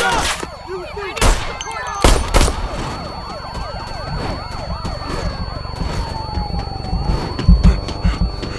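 Several police sirens yelping and wailing at once, their pitch sweeping up and down over each other, with one long falling wail about five seconds in. Three sharp bangs come between one and two and a half seconds in, and heavy low thumps near the end.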